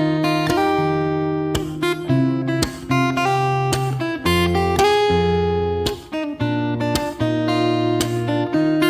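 Background music: an acoustic guitar strumming chords, with a new chord struck about every half second to a second.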